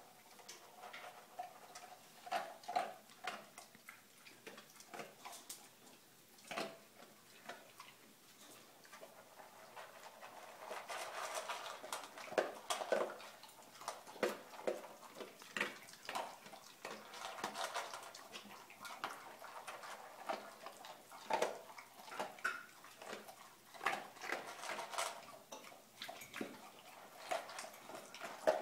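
Two boxer dogs eating from stainless steel bowls in raised metal stands: irregular clinks and rattles of the bowls, mixed with chewing. The clinks come thicker from about ten seconds in.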